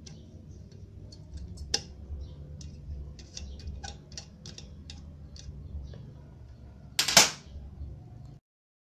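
Light clicks and taps of small hand tools working on a subwoofer speaker's cone and terminals over a steady low hum, with one louder scraping rustle about seven seconds in. The sound cuts off abruptly near the end.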